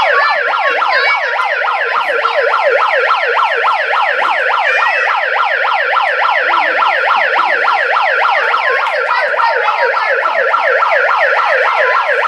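Electronic siren of a red toy firefighter megaphone, loud and continuous, sweeping rapidly up and down in pitch several times a second.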